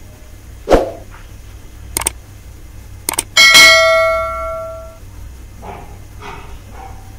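A sudden low thump, then two short clicks and a loud bell-like ding that rings out and fades over about a second and a half. This is the sound effect of a YouTube subscribe-button and notification-bell animation.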